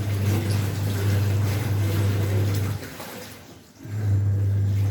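Washing machine running a wash: a steady motor hum with water churning. It stops for about a second near the end and then starts again.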